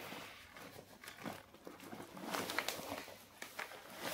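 Plastic and non-woven fabric shopping bags rustling and crinkling in irregular bursts as they are rummaged through and one is pulled out.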